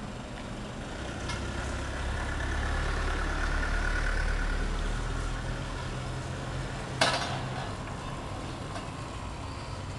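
A motor vehicle's engine rumbles past, swelling for a few seconds and then fading. One sharp clack rings out about seven seconds in.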